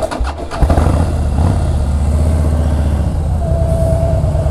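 Harley-Davidson V-twin engine running. It picks up about half a second in, then runs steadily at low speed as the bike is ridden slowly.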